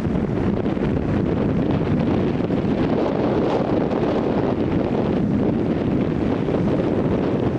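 Strong wind blowing across the microphone: a steady, loud rushing noise, heaviest in the low range.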